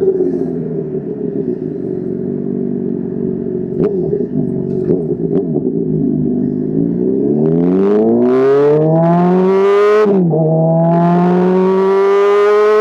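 Honda CBR600RR inline-four motorcycle engine running steadily, then accelerating hard from about seven seconds in, its pitch climbing quickly. There is an upshift with a brief drop in pitch at about ten seconds, then the engine pulls up again more slowly in the next gear.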